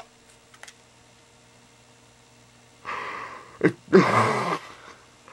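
A person's breathy outbursts: about three seconds in a rush of breath, then a sharp click, then a louder half-second breathy burst with some voice in it.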